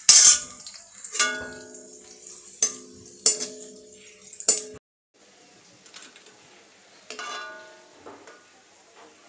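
Steel spoon knocking and scraping against a metal kadai as chopped almonds are stirred and lifted out of frying ghee. There are five sharp ringing clinks in the first five seconds and one more about seven seconds in, over a faint sizzle.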